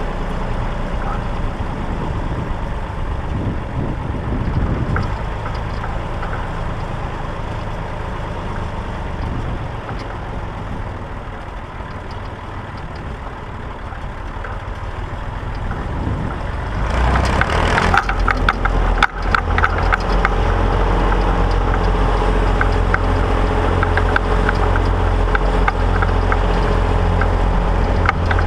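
Massey Ferguson 135 tractor engine running steadily with a clatter. About 17 seconds in it gets louder and stays louder, with a quick, irregular rattling on top.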